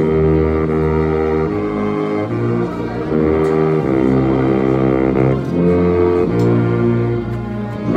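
Baritone saxophone playing a slow hymn in chords with other instruments. Sustained notes change about every second or so.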